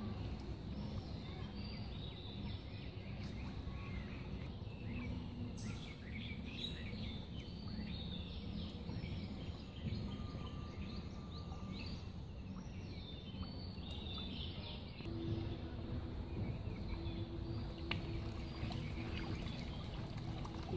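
Outdoor ambience of birds chirping and calling in many short notes over a steady low background rumble, with a faint steady hum coming in about three quarters of the way through.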